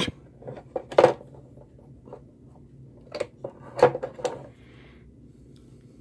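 Metal tweezers and a wire clicking and scraping against a filament dryer's plastic housing and heater while a fan wire is being attached: a handful of short, sharp clicks, the loudest about a second in and again near four seconds in.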